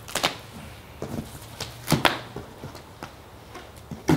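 Cardboard box and packaging being cut open and handled: a handful of short scraping swishes, the loudest about two seconds in.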